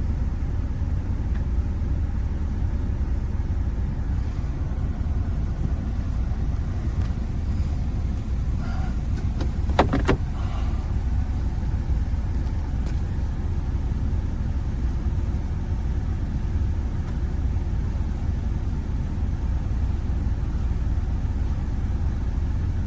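A car running with a steady low rumble, with a brief cluster of clicks about ten seconds in.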